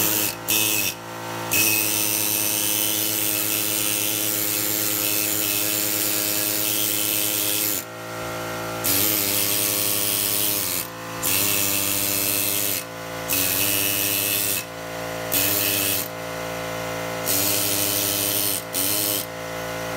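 Small handheld electric power tool running steadily while it scrapes old gasket material off a Ford 302 V8's water pump mounting face. Rough scraping comes in about seven bursts, the first and longest lasting some six seconds, and the motor's pitch dips briefly as each burst ends.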